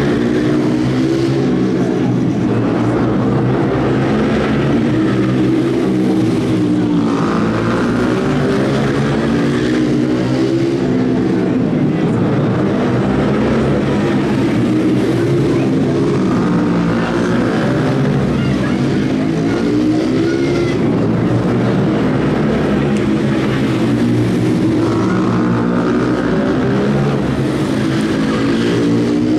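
Small four-stroke engines of mini shifter ATVs racing laps, their pitch rising and falling again and again as they accelerate, shift gears and back off for the turns.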